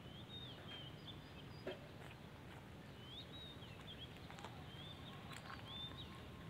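Small birds calling in the background: short, high, thin chirps that rise and fall, coming in little groups several times, over a faint steady outdoor hum with a few soft clicks.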